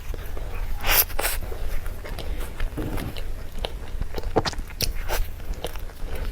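Close-miked eating sounds of a mouthful of cream cake being chewed: irregular wet mouth clicks and smacks, close together at some moments and sparse at others.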